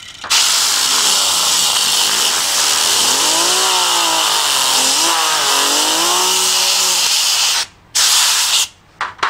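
Compressed-air blow gun hissing loudly as it spins a plastic fidget spinner held in a vise, with the spinner's whirring tone rising and falling under the blast. The air cuts off suddenly near the end, then comes one short final blast.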